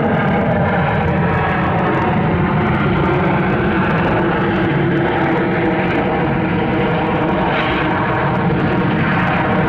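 Jet engine noise from a Boeing 737-900ER's CFM56-7B turbofans as the airliner rolls out along the runway after landing: a steady, loud rushing noise with engine tones running through it.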